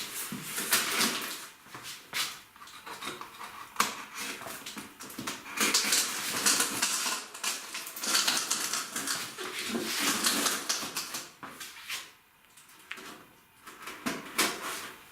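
Large cardboard shipping carton being opened and handled: irregular scraping, rubbing and tearing of cardboard and packing tape, with sharp knocks and a short lull near the end.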